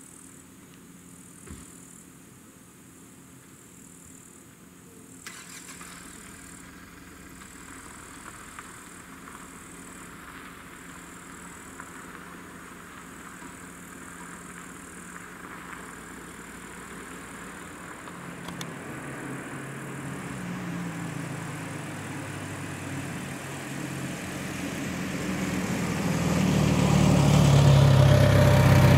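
Level-crossing warning signal switching on about five seconds in: the crossing's electric ZV-01 bell starts ringing steadily. Over the last ten seconds a car approaches, its engine growing louder toward the end.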